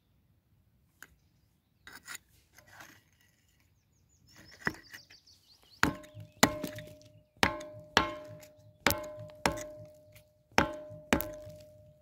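Titanium tactical pen's pointed tip struck hard against a cracked masonry slab: eight sharp knocks in quick pairs starting about halfway, each with a short ring. Before them come a few faint clicks and a brief scrape of the tip on the surface.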